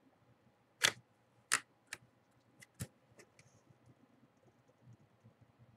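Irregular, sharp clicks and taps of a computer keyboard and mouse, a dozen or so, uneven in strength, the loudest about a second in.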